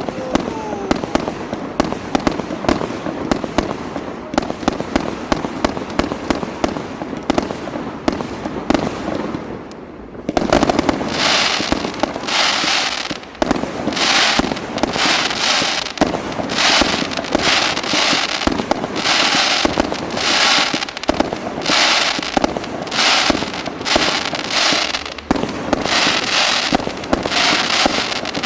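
Fireworks display: dense rapid crackling bangs for about ten seconds, then after a brief lull a regular run of hissing, crackling bursts about one a second.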